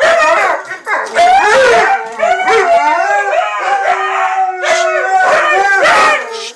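Dogs howling and yowling in long, overlapping calls that bend up and down in pitch, cutting off suddenly near the end.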